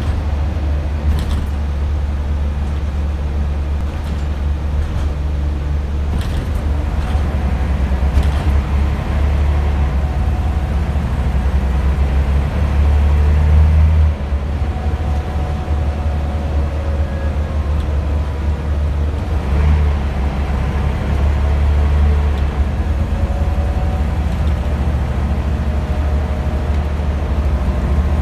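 Scania Omnidekka double-decker bus heard from inside the cabin, its engine being thrashed at high revs: a loud low drone with faint whining tones gliding up and down above it. The drone builds, drops off sharply about halfway through, then builds again.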